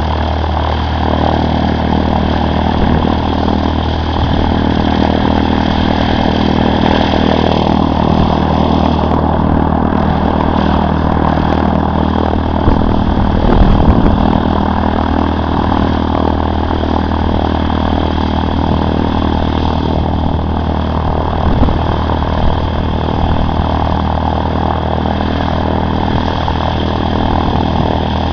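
A Cessna 152's four-cylinder Lycoming O-235 piston engine and propeller running steadily at low power, with a brief louder low rumble about halfway through.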